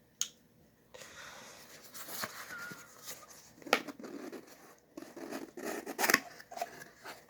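A parcel being opened by hand: packaging tearing and rustling, with a few sharp clicks and snaps.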